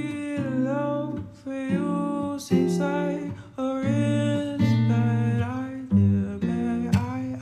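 A song with strummed guitar chords and a singing voice.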